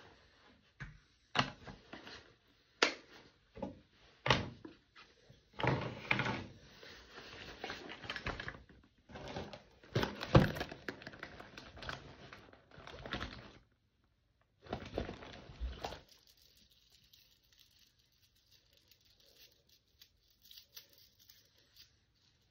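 Small objects being handled, most likely makeup products and their packaging: sharp clicks and taps among stretches of rustling, which stop about two-thirds of the way through.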